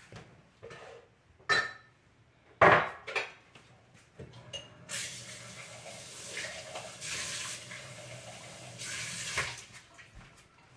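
Kitchen dishes and glassware knocking and clinking a few times, one knock sharply louder, then a steady rush of running water for about four seconds that stops abruptly.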